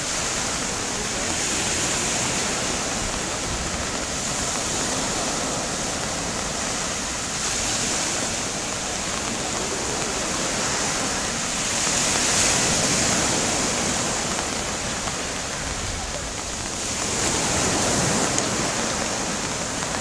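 Waves breaking on a sandy beach: a steady wash of surf that swells and falls back in surges every few seconds.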